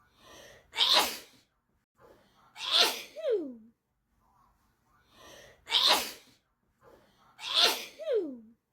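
A person sneezing in a fit: a faint in-breath, then two sharp sneezes close together, the second followed by a short voiced sound that falls in pitch. The same pair of sneezes comes again about five seconds in.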